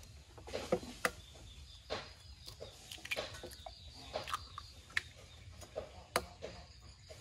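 Hen's eggs being tapped and cracked on the rim of a drinking glass: irregular sharp clicks of shell on glass and shell breaking, the loudest about a second in and just after six seconds.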